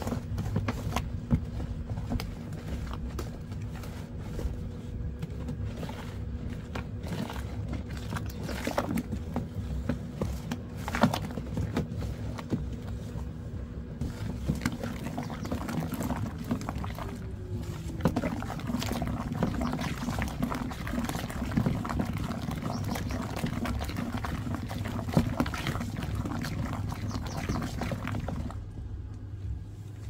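Flat wooden stick churning thick, foamy liquid soap in a plastic basin: wet swishing and sloshing with frequent small knocks of the stick against the basin. The stirring stops near the end.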